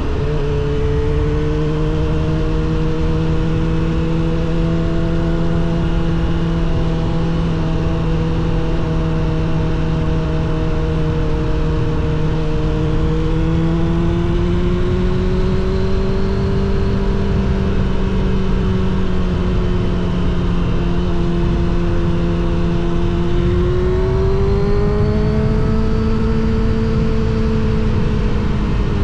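Suzuki GSX-R750 SRAD inline-four breathing through a Yoshimura R77 exhaust, running at steady mid revs under way. Its pitch climbs gently about halfway through and again more sharply a few seconds before the end, then eases back, over steady wind and road rush.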